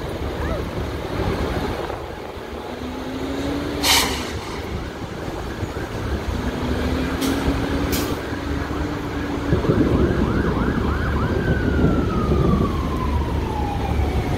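An emergency vehicle siren sounds in quick rising-and-falling yelps from about halfway through, then winds down in one long falling tone near the end, over a steady low rumble. A sharp pop about four seconds in is the loudest moment, and two fainter pops come near eight seconds.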